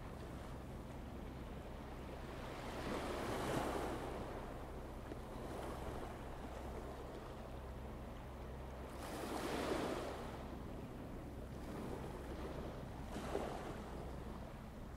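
Water washing at the shore in three slow swells, at about three, ten and thirteen seconds in, over a steady low hum.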